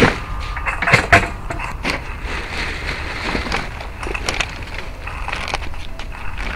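Plastic trash bins and the cart's cargo knocking and rattling as they are handled, in a run of irregular clatters. The loudest knocks come at the start and about a second in, over a steady low rumble.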